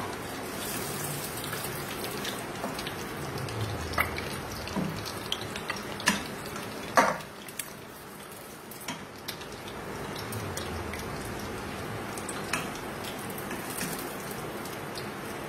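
Oil sizzling around lightly fried hard-boiled eggs in an aluminium pressure-cooker pot. Several sharp knocks come as a spoon lifts the eggs out, the loudest about seven seconds in.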